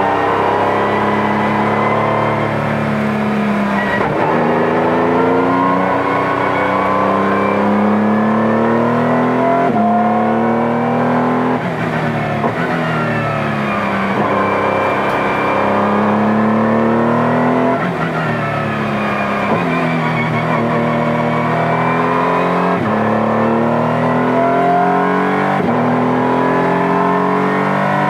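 Honda NSX GT3 race car's twin-turbo V6, heard from inside the cockpit at racing speed. The engine note climbs and falls through corners, with about half a dozen sharp pitch breaks at gearshifts.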